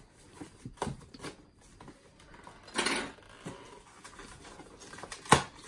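A small cardboard box being handled and opened: scattered light taps and scrapes of cardboard, a short rustle about three seconds in, and one sharp knock near the end.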